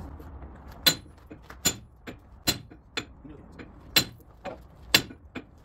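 Hammer blows ringing on the master pin of a Caterpillar D8 crawler's track chain as the pin is driven out. There are six sharp metallic strikes, about one every 0.8 s, with lighter taps between.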